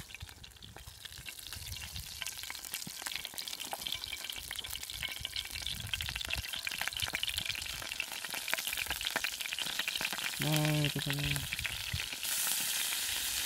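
Hot oil in a frying pan over campfire coals sizzling and crackling as floured pieces of flathead fish are dropped in. The sizzle grows steadily louder as more pieces go in, with a jump in the hiss near the end.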